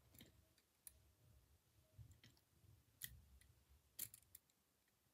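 Faint, sparse plastic clicks from a model railway breakdown crane being handled by hand as its jib and hook are worked over a wagon to hook it; four or so light clicks, the loudest near the end.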